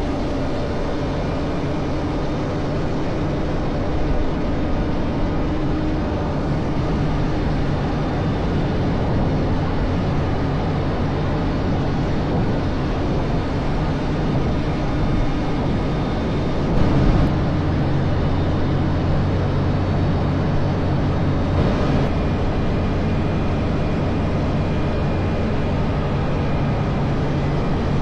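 Claas Lexion 8900 combine harvester running steadily while it unloads grain through its unloading auger, with a low engine hum under the noise of the grain and auger.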